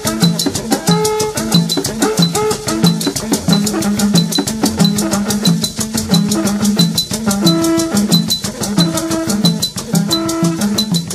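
Gospel band music: drums keeping a fast, even beat with a quick ticking about seven times a second, over a repeating bassline and guitar-like melody notes.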